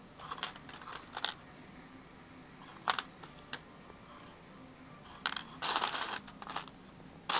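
Small plastic building bricks clicking and clattering as a hand sorts through a loose pile of them on a tabletop: a series of short rattles, with a longer clatter about six seconds in.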